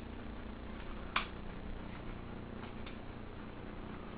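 A single sharp click about a second in, with a few faint ticks, from the metal slide and slide stop of an Army Armament R29 gas-blowback airsoft 1911 being pressed into place during reassembly.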